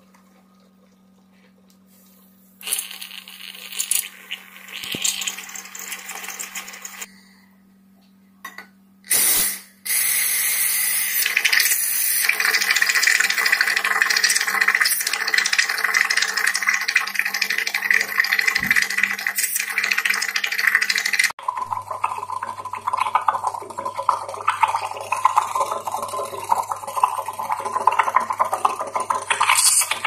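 Steam wand of a SOWTECH 3.5-bar espresso machine frothing milk in a stainless steel pitcher: sputtering hiss at first, then from about ten seconds in a steady, loud hissing that changes tone about two-thirds of the way through.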